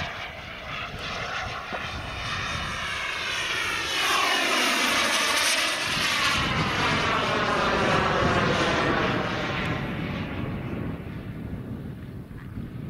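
Wren 160K Pro model jet turbine of a CARF Lightning sports jet flying past overhead. A rushing jet noise builds about four seconds in, takes on a sweeping, phasing quality as the jet goes by, and fades away near the end.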